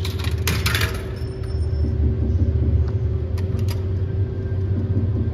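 Coins clinking into a video slot machine's coin slot in the first second, then a few sharp clicks about three and a half seconds in as a spin is started, over a steady low rumble.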